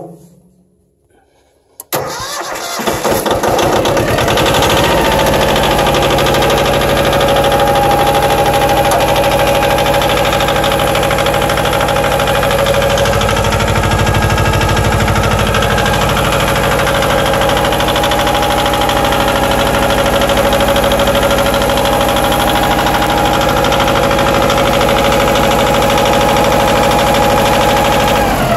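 Yanmar YM1500 compact tractor's diesel engine starting about two seconds in, catching at once, then running steadily and sounding healthy.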